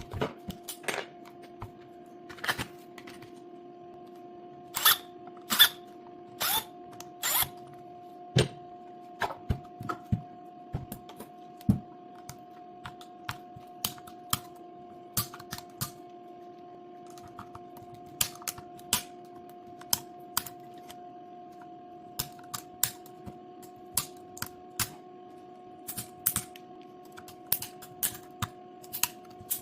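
Irregular clicks and taps of hands handling a Milwaukee power-tool battery pack's plastic case and parts, a few louder clicks in a cluster several seconds in, over a steady electrical hum.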